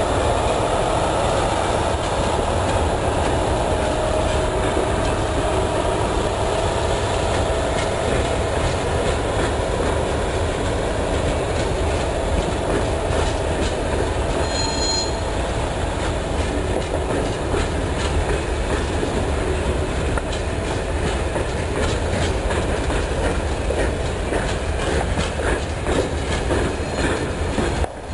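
Freight train pulling out, its wagons rolling past with a steady rumble and a clickety-clack of wheels over the rail joints. A faint wheel squeal sounds in the first several seconds, and a brief high squeal comes about halfway through.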